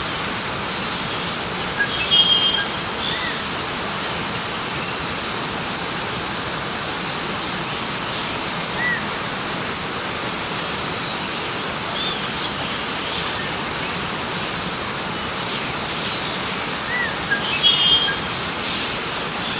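A river flowing with a steady, even rushing. Birds call over it: short chirps about two seconds in and again near the end, and one longer, high call about ten seconds in.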